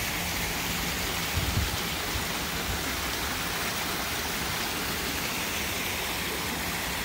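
Steady rushing hiss, even from low to high pitches, with a brief faint low rumble about a second and a half in.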